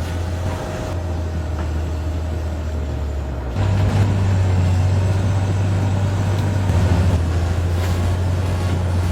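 Heavy machine engine running with a low, steady rumble; it steps up louder about three and a half seconds in.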